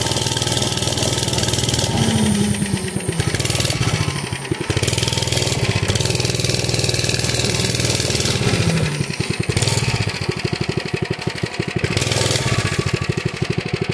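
Mini bike's small engine running under a rider, its pitch rising and falling as the throttle changes, with dips in pitch about two seconds in and again past eight seconds.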